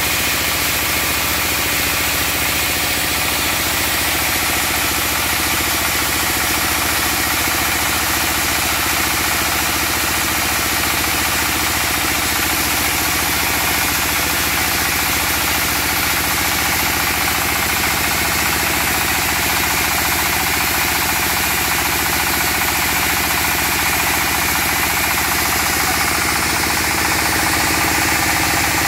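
Small stationary diesel engine running steadily at a constant speed, driving a vertical band sawmill while the saw is being test-run.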